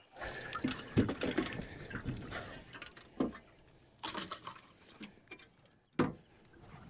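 Water sloshing and trickling close by, broken by a few sharp knocks.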